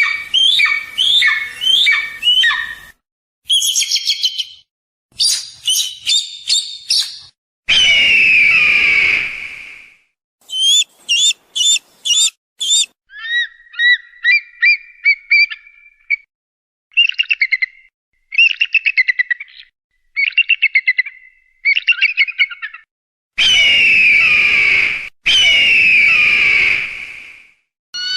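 A series of eagle calls: a run of short falling whistled notes, then high chirps. Long falling screams come about a third of the way in and twice near the end, with rapid chattering trills in the middle.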